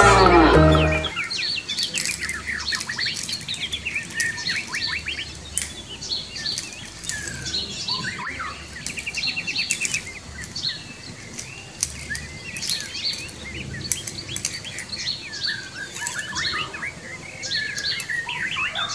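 Music stops about a second in, leaving a busy chorus of small songbirds chirping and twittering in short calls and whistles.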